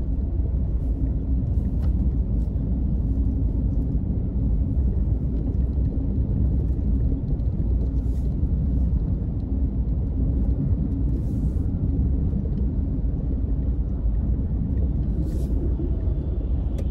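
Steady low rumble of a car driving: engine and tyre-on-road noise, with a few faint short hisses now and then.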